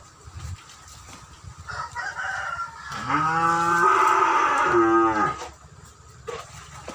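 A bovine in the pen moos once: one long, loud call of about two and a half seconds starting about three seconds in, rising at the start and falling away at the end.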